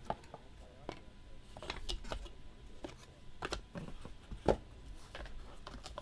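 Cardboard trading-card box being opened and handled: the lid lifted off and the cards inside touched, giving scattered light taps, clicks and scrapes, with one louder knock about four and a half seconds in.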